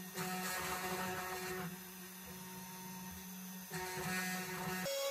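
Comgrow Robo desktop CNC router's spindle running with a steady hum while its end mill engraves letters into a wood board on a 0.25 mm-deeper second pass. The cutting noise swells louder twice, and the sound changes abruptly just before the end.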